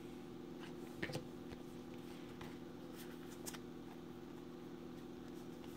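Faint, scattered soft clicks of 2018 Bowman baseball cards being slid one behind another in the hands as a pack is flipped through, over a low steady hum.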